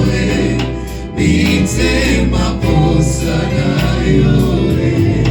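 Church gospel worship song: voices singing together over a band with a steady bass line, dipping briefly about a second in.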